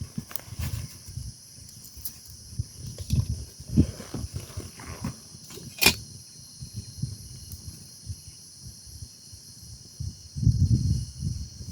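Steady high-pitched chorus of insects, with irregular low rustles and thumps close by and one sharp click about six seconds in.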